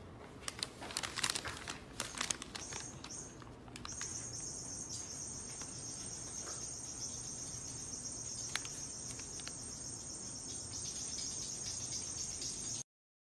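Paper bag crinkling and rustling with sharp clicks as it is lowered over a cat's head. From about four seconds in, a steady high-pitched insect-like trill takes over and runs until it cuts off abruptly near the end.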